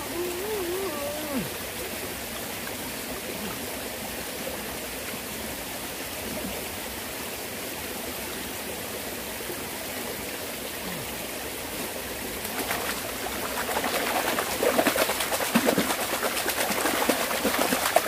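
Shallow mountain stream flowing steadily. About two-thirds of the way in, irregular splashing starts and grows louder as water is churned and scooped by hand.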